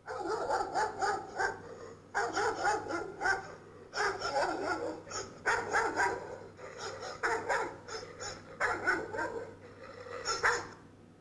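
Dog barking in quick runs of several barks, with short pauses between the runs.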